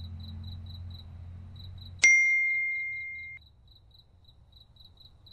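Crickets chirping steadily, about four chirps a second, over a low hum. About two seconds in, a single clear bell-like ding sounds, much the loudest thing, and the hum stops at the same moment. The ding fades for about a second and a half, then cuts off sharply, leaving only the crickets.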